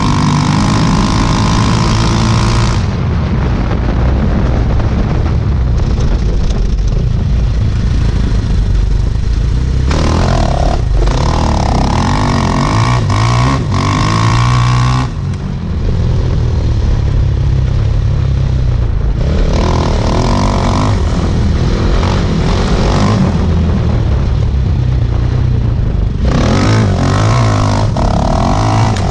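Off-road sidecar motorcycle's engine running hard at speed, its revs rising and falling, with a brief let-off about halfway through. Wind rush on the camera comes and goes over it.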